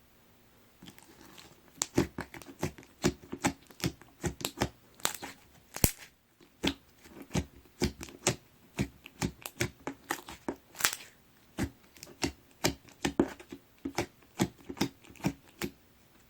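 Deep red jiggly watery slime being squeezed and pressed by hand, making a run of sharp wet pops and clicks about twice a second.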